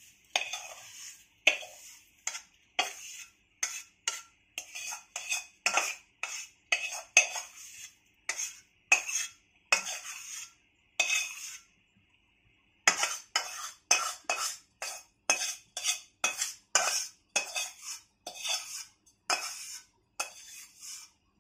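Spoon scraping and knocking against a pan as roasted dal flour is scooped out, stroke after stroke about one or two a second, with a short pause a little past halfway.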